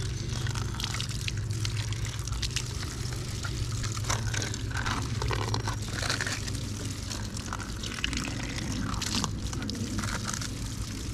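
Water from a rain barrel spout pouring and splashing as small plastic containers are rinsed under it by hand, with scattered light plastic clatters, over a steady low hum.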